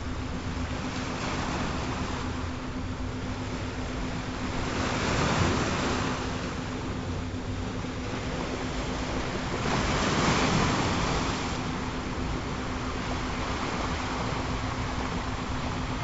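Ocean waves washing ashore, with surges swelling and fading about five and ten seconds in, over a steady low tone.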